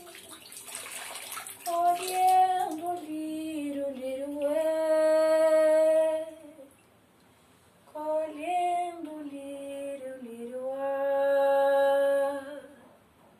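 Water splashing for the first second or so, then a woman singing unaccompanied in two long phrases of slow, held notes, with a pause of about a second between them.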